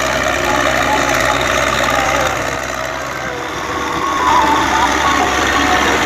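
Belarus 510 tractor's diesel engine running steadily under load as it drags a rear tillage implement through deep, flooded mud. The sound dips about halfway through and picks up again about a second later.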